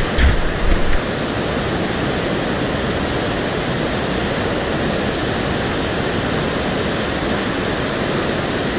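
Steady rush of a whitewater river running over boulders. A few low bumps in the first second.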